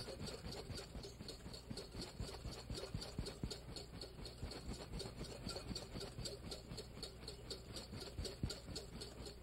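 Wire whisk beating egg yolks and oil in a mixing bowl by hand: a faint, steady rhythm of whisk strokes against the bowl as the mayonnaise starts to thicken.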